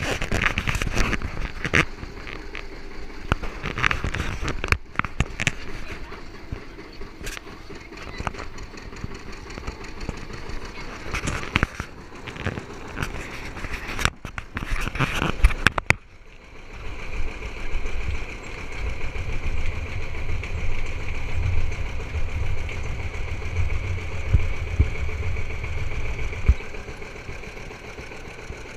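Farm tractor engine running under way, heard from the ride behind it: irregular knocks and rattles through the first half. About halfway through, this gives way to a steady low engine rumble with a constant higher whine.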